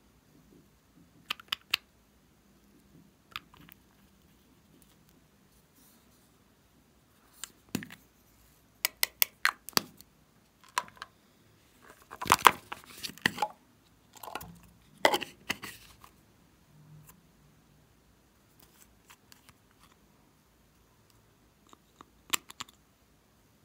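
Handling of small plastic and glass cosmetic bottles and a strawberry-shaped plastic slime container: scattered sharp clicks and taps of caps and containers, with a louder run of clicking, scraping and crinkling about halfway through as the strawberry container is handled and opened.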